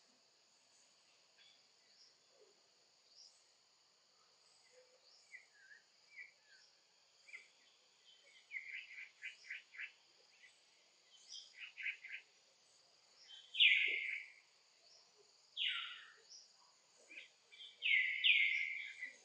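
Insects droning steadily outdoors, with short high bird chirps that come thicker and louder in the second half.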